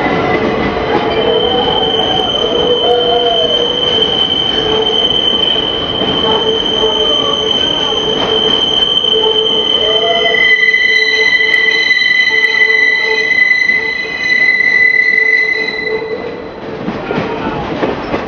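Passenger train's steel wheels squealing on the rails inside a tunnel, several steady high-pitched squeal tones over the constant rumble of the cars. The squeal changes pitch about ten seconds in and fades out near the end as the train leaves the tunnel.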